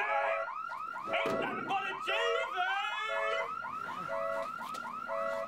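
Car alarm going off after a knock on the parked car: a rapid, repeating run of falling chirps, about four or five a second, with a lower double beep about once a second.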